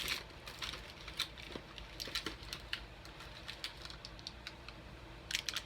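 Candy and snack wrappers being handled: irregular crinkles and light clicks of plastic packaging, with a quick cluster near the end.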